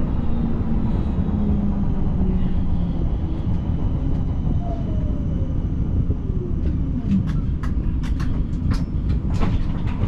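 Siemens Combino tram running on its track with a steady low rumble. Around the middle a motor whine falls in pitch, then a quick run of sharp clicks and clacks from the wheels follows in the last few seconds.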